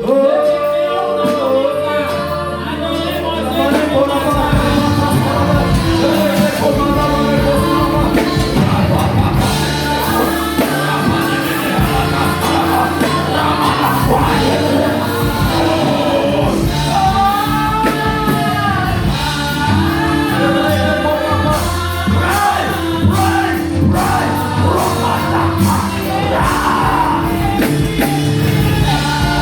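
Worship music: singing voices over sustained keyboard chords and a bass line.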